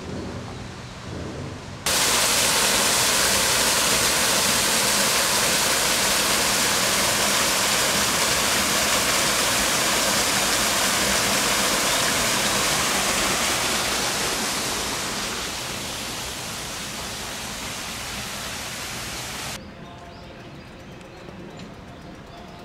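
A loud, steady rushing hiss that starts suddenly about two seconds in, eases a little past the middle and cuts off suddenly near the end.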